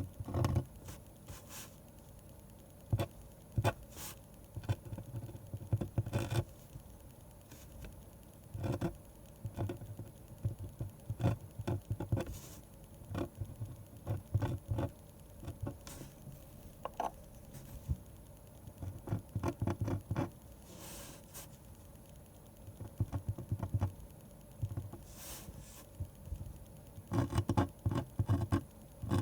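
Drawing strokes on paper for manga: short scratchy strokes that come in quick clusters, with pauses between them.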